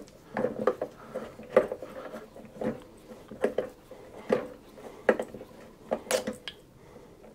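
Metal tools and engine parts knocking and clinking, about one sharp knock a second, each with a short metallic ring, as a Simson S51 two-stroke engine is taken apart by hand.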